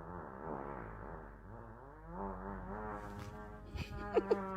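A dog vocalizing in long, wavering whines and grumbles, with a couple of sharp clicks near the end.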